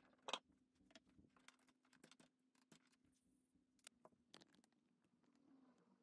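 Near silence with faint scattered clicks and taps of cables, plugs and a metal laptop stand being handled on a desk. The loudest click comes just after the start, over a faint steady low hum.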